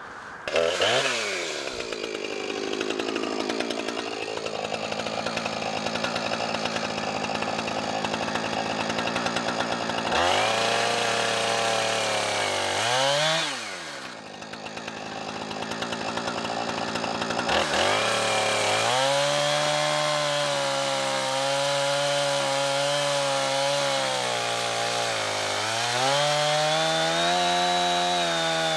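Chainsaw on an Alaskan-style chainsaw mill ripping a log lengthwise into lumber. The engine revs up, drops back about halfway through, then revs up again and runs steadily under load, with a brief dip in pitch near the end.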